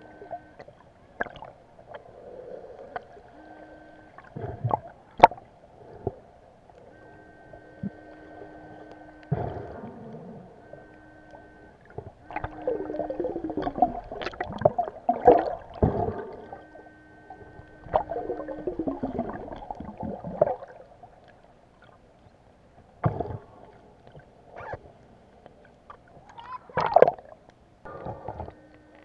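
Underwater sound of a diver's hand and body moving through the water: muffled churning and gurgling, loudest in the middle where a hand fans and scoops the seabed sand, with a few sharp knocks. A steady hum switches on and off in short stretches.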